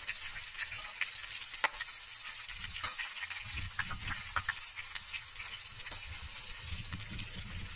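Breaded chicken pieces shallow-frying in hot oil in a pan, sizzling steadily with scattered crackles and pops.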